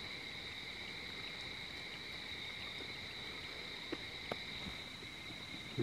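Faint night insect chorus: a steady high-pitched drone at two pitches, with two faint ticks about four seconds in.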